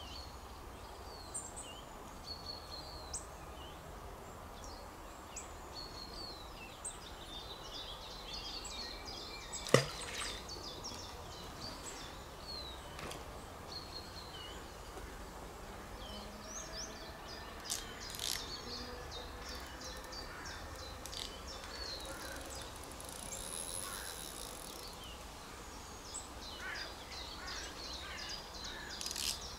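Small birds chirping throughout, with one sharp swish about ten seconds in as a carp rod is cast out.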